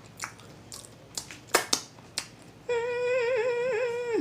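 A few crunching and clicking mouth sounds of eating fried fish, then, about two-thirds of the way in, a man starts humming loudly in a wavering, vibrato-laden tone, imitating a violin.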